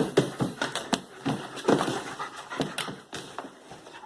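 A dog panting in quick breaths, with a few sharp clicks among them.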